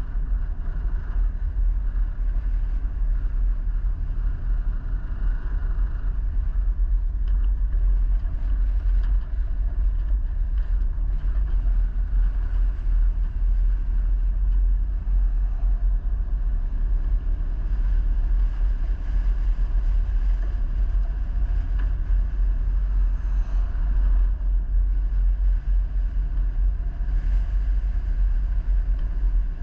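A vehicle driving: a steady low rumble of engine and road noise with no sharp events.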